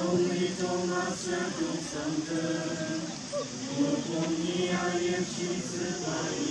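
A group of teenage voices, boys and girls together, singing in unison, with held notes that rise and fall in pitch.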